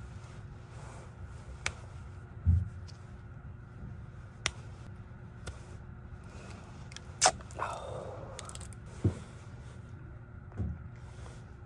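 Plastic snack packet being handled and pulled open with difficulty: scattered crinkles and clicks, a sharp snap about seven seconds in followed by about a second of rustling, and a few dull knocks.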